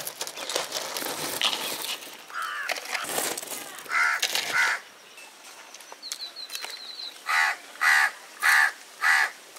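A crow cawing several times, ending in a run of four harsh caws about half a second apart.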